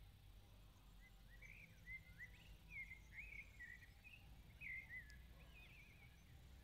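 Faint birdsong: a string of short chirping notes rising and falling in pitch, over a low background rumble.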